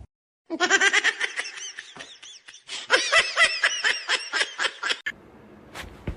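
High-pitched human laughter in two quick bouts of rapid giggling, each lasting about two seconds.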